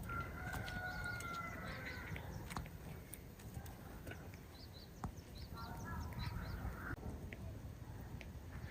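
Faint bird calls outdoors: one drawn-out call lasting about two seconds near the start, a shorter call around six seconds in, and quick high chirps from small birds in between.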